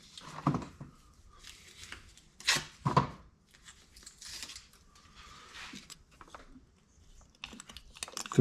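Masking tape being pulled off the roll and torn, in short rasping strips with some crinkling.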